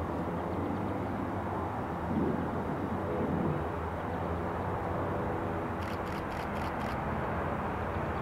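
Steady low rumble of a Boeing 767-300F's jet engines on final approach, still some way off, swelling briefly about two and three seconds in. A quick run of faint high ticks comes near the end.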